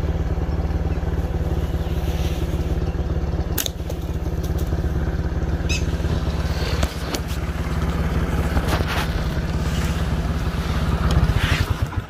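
Motorcycle engine running steadily while riding, with a fast even pulsing, and a couple of sharp clicks along the way. The engine note drops away just before the end.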